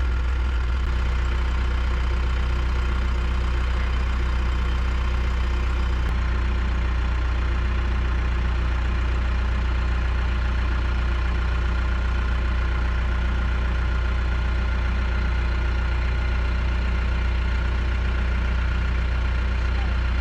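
Backhoe's diesel engine running steadily at idle, a strong, even low hum that does not change.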